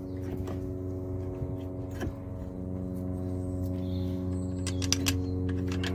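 Brake caliper being fitted onto its bracket: a few metallic clicks and knocks, one about two seconds in and a quick cluster near five seconds, over a steady low hum.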